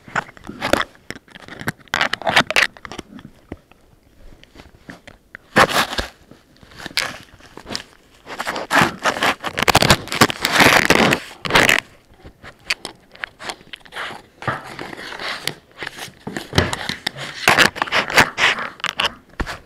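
Puppies chewing an off-brand action camera: teeth scrape, click and crunch on its plastic case right at the microphone, in irregular bursts with short pauses.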